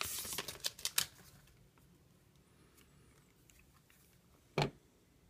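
Thin plastic protective film crinkling as it is peeled off a power bank for about a second, then faint handling, and one short sharp knock near the end.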